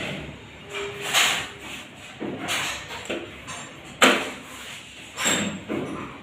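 Irregular knocks and rustling noises, with the sharpest knock about four seconds in.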